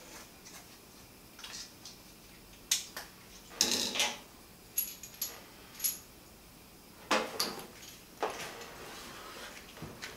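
Scattered clicks, light clinks and knocks from hands handling a brass hose adapter and a roll of Teflon tape and setting them down on a washing machine's top, the loudest knocks about four seconds in and again around seven seconds, with a few short high chirps between them.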